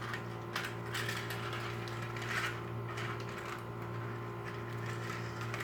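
A toy's small mechanism clicking and rattling irregularly over a steady low hum.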